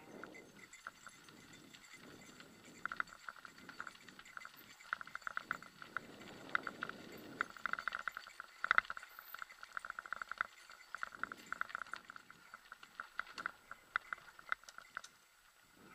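Mountain bike rolling over a dirt forest trail: dense, rapid rattling and clicking from the bike, heaviest in the middle, over a low rumble of tyres and wind.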